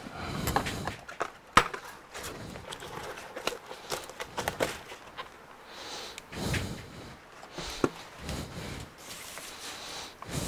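Workbench handling noise: scattered light clicks and knocks, with brief rustles, as gloved hands move tools and the tablet about on the bench.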